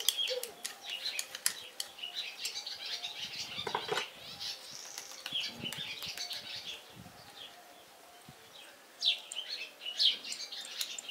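Birds chirping in short, quick calls, several of them close together near the end. Light metallic clicks and clinks come throughout as a hydraulic valve spool, its spring and washers are handled by hand.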